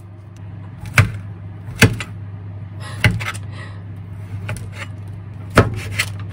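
Chef's knife chopping food on a plastic cutting board: about five sharp knocks, unevenly spaced a second or so apart, cutting through enoki mushrooms among other things. A steady low hum runs underneath.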